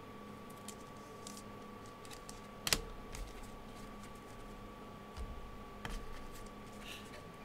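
Trading cards and plastic card sleeves handled on a table: light scattered clicks, ticks and shuffles, with one sharper tap a little under three seconds in and another near six seconds. A faint steady high hum runs underneath.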